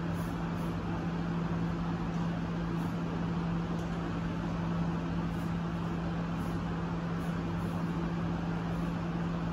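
Steady low machine hum over an even hiss, with no strokes or knocks standing out.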